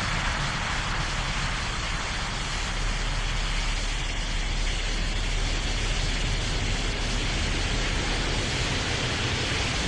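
Steady rushing noise with a low rumble: the jet engines of a landing Boeing 787 airliner.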